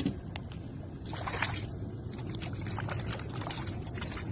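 Water splashing and lapping alongside a boat hull, with small irregular splashes over a low steady rumble.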